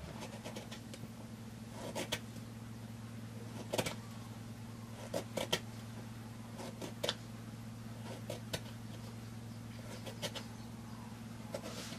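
A kitchen knife slicing the rind off a lemon on a wooden cutting board: irregular short clicks and taps of the blade cutting through the peel and meeting the board, often in pairs. Under them runs a steady low hum.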